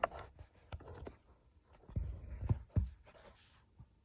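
Hands working a turn signal stalk into a steering column: scattered plastic clicks and light rubbing, with a few louder dull knocks about two to three seconds in, as the stalk is pushed down into place.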